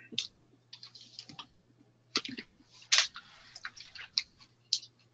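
Scattered soft clicks and taps at irregular intervals over a faint steady low hum, with a brief rustle about three seconds in.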